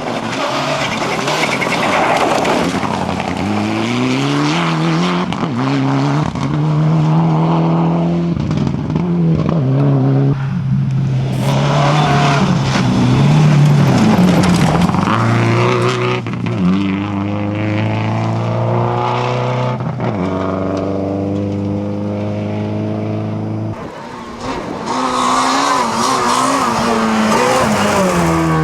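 Rally car engines revving hard as the cars pass and accelerate through the gears. The pitch climbs and drops back at each shift, several times over, and there are stretches of loud tyre and skid noise near the start and the end.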